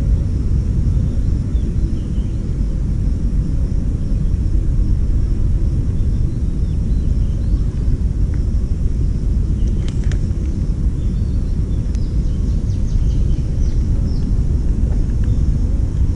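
Wind buffeting the microphone outdoors, a steady low rumble, with a faint high steady drone behind it and a few faint clicks about ten seconds in.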